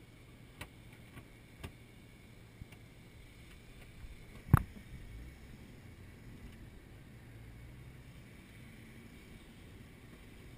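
A Jeep's engine running low and steady while it drives slowly, heard from inside the cabin, with a few small rattles and clicks. A single loud, sharp knock comes about four and a half seconds in.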